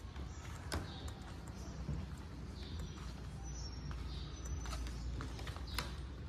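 Footsteps on old wooden floorboards, with a few sharper knocks over a low, steady rumble.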